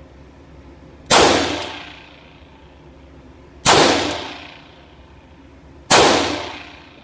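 Three .22 LR pistol shots from a KWC airsoft 1911 converted with a GSG .22 LR kit, the second about two and a half seconds after the first and the third about two seconds later. Each shot rings off in the echo of an indoor range.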